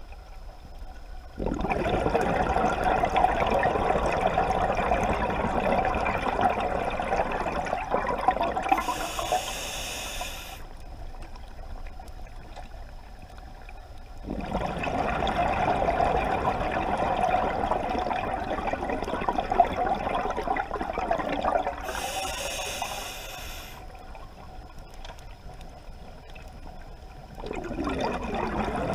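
Scuba diver breathing through a regulator underwater: two long bubbling exhalations, each ending with a short hiss of inhalation, and a third exhalation starting near the end.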